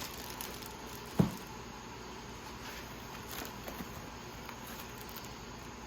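Quiet handling of a helmet and its packaging: one short, dull thump about a second in, then faint light ticks and rustles.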